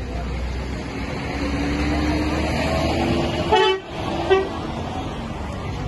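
A vehicle horn toots twice in quick succession about three and a half seconds in, the first a little longer than the second, over the steady low hum of street traffic.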